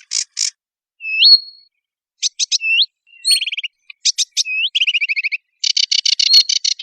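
Small migratory songbirds singing: separate high chirps and rising, hooked whistled notes, building into a fast, dense trill near the end.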